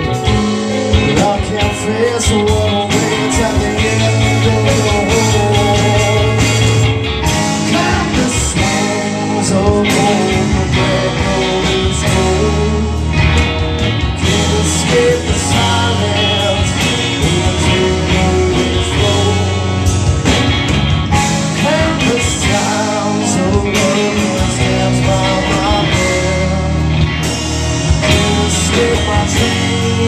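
Live rock band playing loudly, with guitars and drums and a singer's voice over them through the PA.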